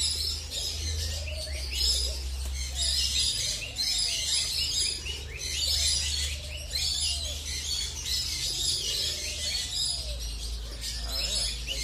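Birds chirping and twittering in dense, repeated bursts every second or two, over a steady low rumble.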